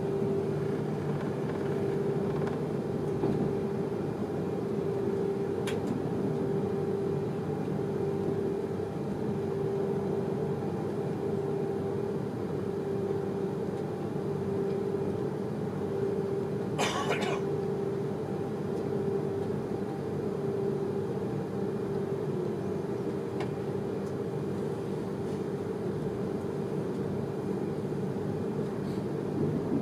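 Steady running noise inside the passenger car of a Pendolino electric train moving along the track, with a constant hum throughout. A brief rush of noise about 17 seconds in.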